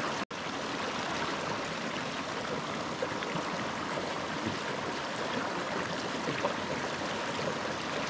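Shallow mountain stream running over rocks: a steady rush of flowing water, with a brief drop-out near the start.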